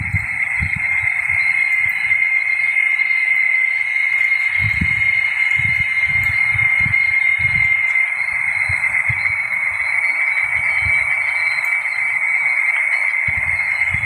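A chorus of cicadas giving off a loud, steady, high-pitched buzzing drone that never lets up. Wind rumbles on the microphone in gusts, most strongly a little after a third of the way in.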